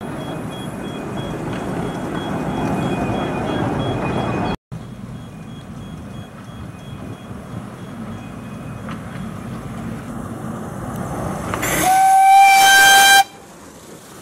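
A miniature steam railway train running on the track, its carriages rolling past and then the approaching engine, an Exmoor Steam Railway-built 0-4-2 tank locomotive, growing louder. Near the end the locomotive gives one blast of its steam whistle, about a second long and the loudest sound.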